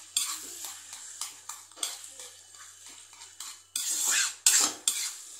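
Spatula scraping and knocking against a metal kadhai as soft cooked pumpkin is stirred and mashed, in irregular strokes. The strokes are loudest about four seconds in.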